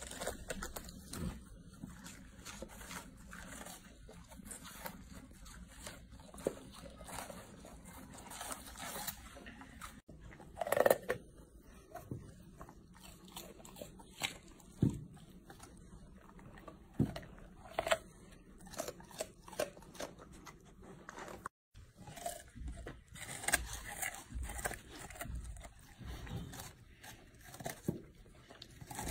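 Golden retrievers biting and chewing raw vegetables such as Napa cabbage and sweet potato: irregular wet crunches and bites, some much louder than others.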